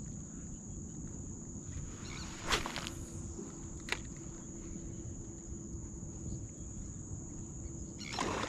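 Outdoor ambience: a steady high-pitched insect drone over a low rumble, with a single knock about two and a half seconds in and a sharp click near four seconds.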